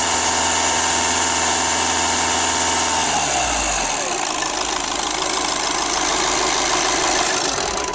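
Volkswagen Jetta common-rail diesel engine held at high revs with the accelerator pressed. About three seconds in the pedal is released and the revs drop back toward idle.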